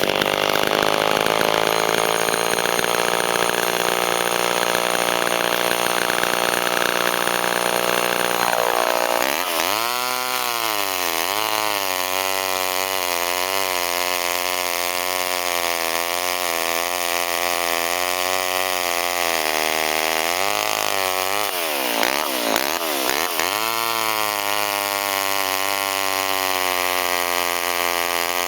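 Vintage Homelite two-stroke chainsaw running hard, its sound changing abruptly about nine seconds in, with its engine pitch dipping and climbing back twice, once just after the change and again a little past twenty seconds in.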